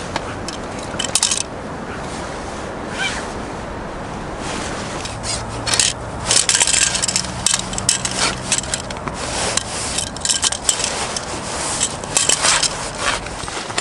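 A fishing rod and its line being handled close up: an irregular run of scrapes, rubs and clicks, busiest in the second half.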